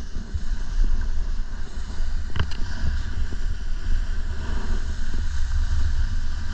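Wind buffeting the microphone: a loud, steady low rumble, with one short sharp sound about two and a half seconds in.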